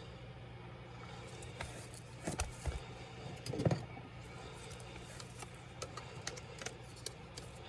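Scattered light clicks, taps and knocks of a laptop and small tools being handled during disassembly, louder about two and a half and three and a half seconds in, over a steady low hum.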